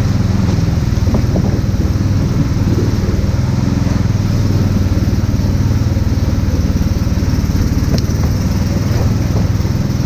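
Longboat's outboard motor running steadily under load, driving the boat along with water rushing past the hull.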